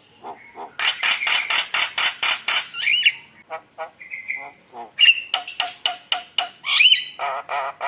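Javan myna (jalak kebo) in full song: a fast run of harsh chattering notes, about seven a second, followed by whistled notes, squawks and a warbling phrase near the end.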